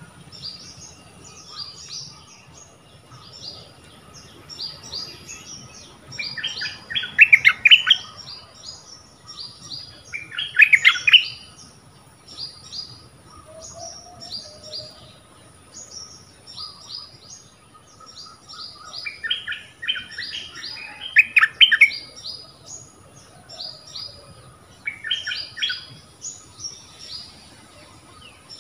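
Stripe-throated bulbul singing: loud bursts of song phrases four times, over a steady run of short, quick, high chirps.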